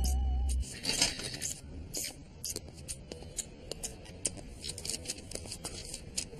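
Music cuts off under a second in, then light, irregular clicks and taps follow, several a second.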